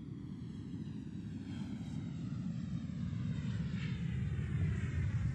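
Aircraft engine drone of a plane flying past, growing steadily louder, with its upper tones sliding downward in pitch.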